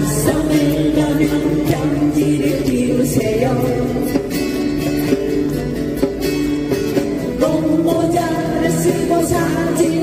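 An acoustic guitar ensemble strumming a song together while the group sings along.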